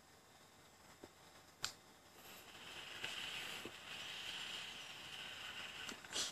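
A long draw on a K200 e-cigarette mod: a steady airy hiss with a faint whistle as air is pulled through the atomizer for about four seconds, after a single click. A short sharp burst of noise ends it.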